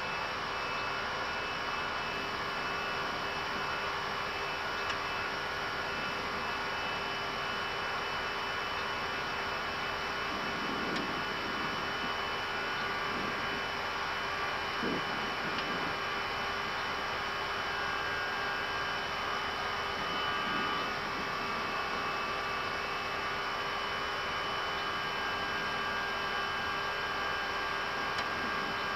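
Airbus A320 flight-deck noise in climb: a steady rush of air with a steady hum.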